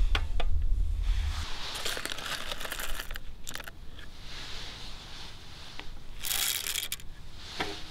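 A stainless steel hand coffee grinder handled with light metal clicks and knocks, then coffee beans poured from a plastic scoop into its hopper: a short rattling pour of beans on metal about six seconds in.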